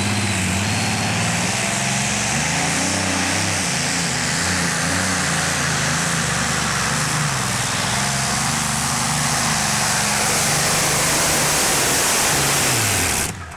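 Modified pulling tractor's engine running loud at full throttle as it drags the weight sled down the track, its pitch wavering up and down with tyre and track noise underneath. Near the end the pitch falls and the sound cuts off suddenly.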